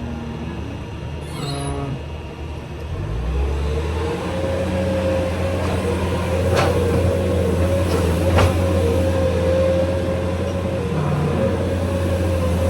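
A heavy vehicle engine running steadily, getting louder about three seconds in, with a steady whine above its drone. Two sharp knocks are heard, a couple of seconds apart, midway through.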